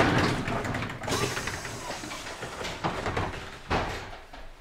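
Running noise heard inside a 1970s Waggon Union GT8 high-floor tram: a steady rumble that is loudest at the start, with a couple of sharp knocks near the end.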